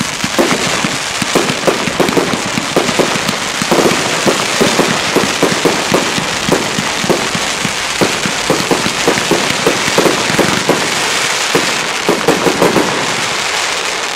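Piromax PX Pro 7 firework battery firing: a continuous crackling hiss with rapid sharp pops, several a second, which dies away near the end.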